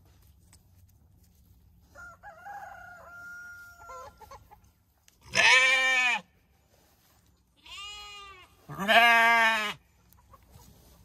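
Sheep bleating loudly at close range: two long baas with a softer one between them, from about five seconds in. Before them a rooster crows once, more faintly.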